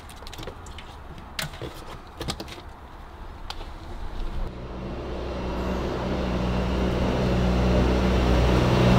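Handling noises as electrical wire is unspooled from a reel and pulled through, with scattered sharp clicks. From about halfway in, a steady low hum swells gradually louder and becomes the loudest sound.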